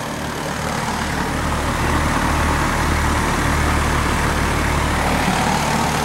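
Outdoor air-conditioner condenser unit running: a steady compressor hum under the rush of its fan.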